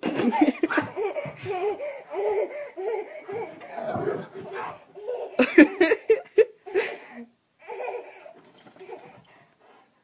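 A baby laughing in quick repeated bursts, loudest a little past halfway, then trailing off.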